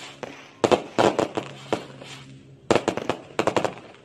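Fireworks going off: rapid clusters of sharp bangs as aerial shells burst, one cluster about a second in and another near the end, with a short lull between them.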